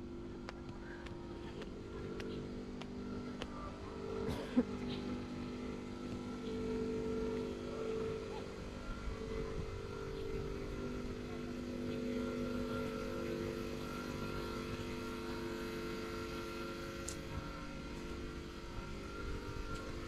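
An engine runs steadily, humming with a slightly wavering pitch and swelling at times, along with a few light footsteps on concrete.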